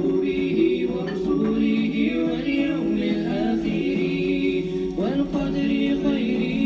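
Background a cappella Islamic devotional chant (nasheed) in Arabic: voices singing long held, gliding notes with no instruments.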